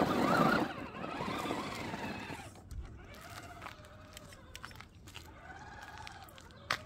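Absima Sherpa RC crawler's electric motor and drivetrain whining, rising and falling in pitch with the throttle; loudest in the first half-second as it climbs over the stone edge, then fainter as it drives off over the grass pavers. A single sharp click near the end.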